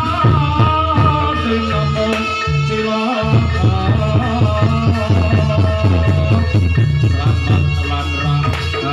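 Music with a singing voice over drums and a steady, driving beat; the low end drops out briefly about three seconds in.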